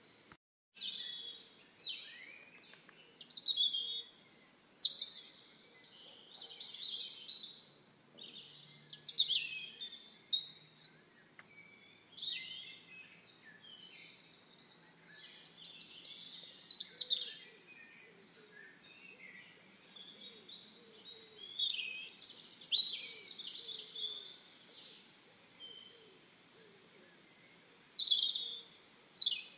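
Songbirds singing: short, high, varied chirping phrases in clusters every second or two, with a brief gap in the sound about half a second in.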